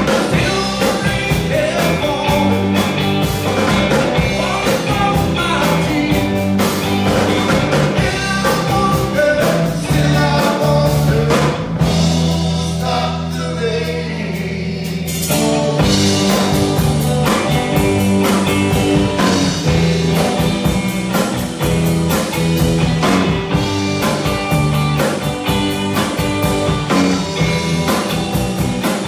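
Live rock band playing in a bar: electric guitars and a drum kit with a singer. About twelve seconds in, the drums drop out for a few seconds over a held chord, then the full band comes back in.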